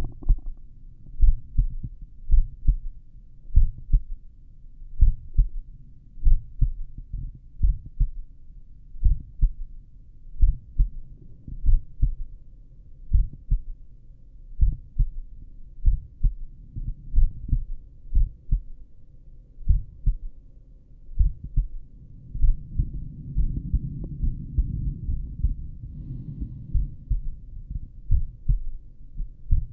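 Human heartbeat heard through a stethoscope at the apex of the heart: a slow, regular lub-dub, about one beat a second. A few seconds before the end a low rumbling noise swells under the beats for several seconds.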